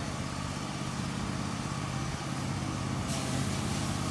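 An engine idling steadily, with a hiss that gets louder about three seconds in.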